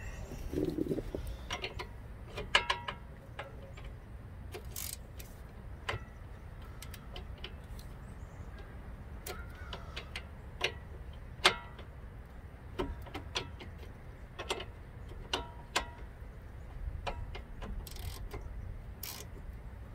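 Steel wrenches, one of them a ratcheting wrench, clicking and clinking on the strut-to-steering-knuckle bolts of a 2018 Jeep Renegade's front suspension as they are loosened: irregular sharp metal clicks and taps, a few ringing briefly, the loudest about two and a half seconds in and again about eleven and a half seconds in.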